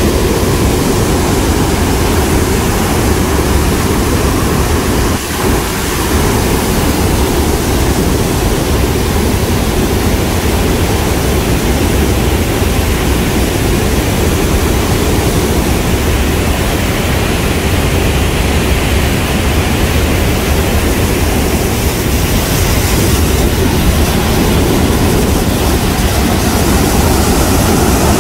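Floodwater pouring through a dam's open spillway gates: a loud, steady rush of water that dips briefly about five seconds in.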